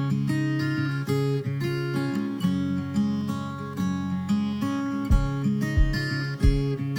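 Background music: strummed acoustic guitar, with low beats coming in about five seconds in.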